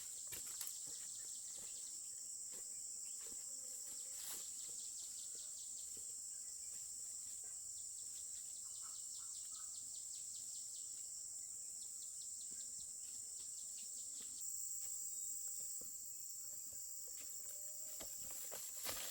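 Insects buzzing in a steady, high-pitched drone, with a few faint clicks and taps.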